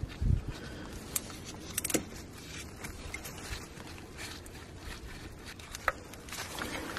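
Scattered metallic clicks and clinks of a ratchet, socket and extension being worked to undo a glow plug, with a dull thump just after the start.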